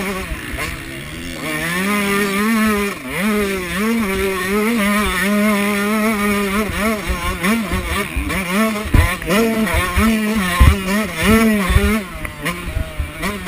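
Pit bike engine heard from on board, revving up and down again and again as it is ridden round a dirt motocross track, with quick throttle blips in the second half. A few sharp knocks from the bike hitting bumps come through about two-thirds of the way in.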